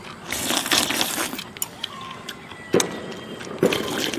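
Slurping thin porridge from the rim of a ceramic bowl, a hissing sucking sound, followed by two sharp clicks of chopsticks knocking against the bowl.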